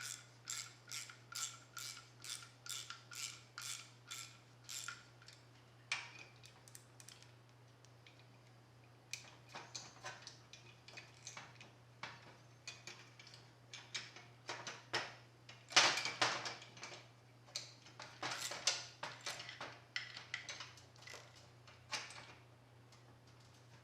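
Wrench turning the nut on a door spring compressor tool, squeezing a car door hinge spring: a run of evenly spaced metal clicks, about three a second, for roughly five seconds, then after a pause a string of irregular clicks and clinks of metal on metal.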